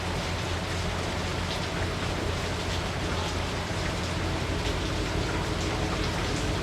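Heavy rain falling steadily, with scattered drop hits and a steady low hum underneath.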